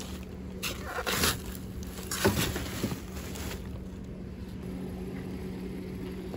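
Trash rustling and scraping as a dumpster of plastic bags and foam packing is searched, in two short bursts in the first few seconds, over a steady low hum.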